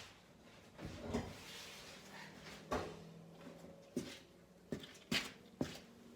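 A handful of separate knocks and clicks, a second or so apart, from objects being handled and set down.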